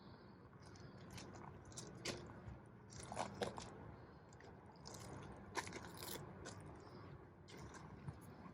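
Faint, irregular crunching and rustling with a few sharper clicks, the kind made by movement among garden plants and soil.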